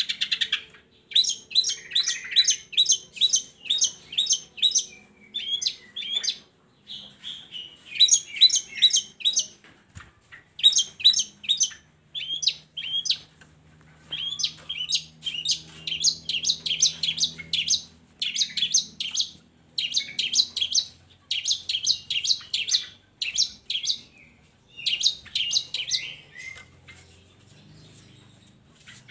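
Long-tailed shrike (cendet) singing in fast runs of sharp, repeated high notes. The runs last a second or two each, with short pauses between them.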